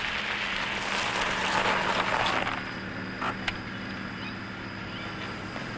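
Fiat Uno hatchback rolling to a stop on gravel, its tyres crunching for about two and a half seconds. The engine then idles steadily, with a couple of faint clicks.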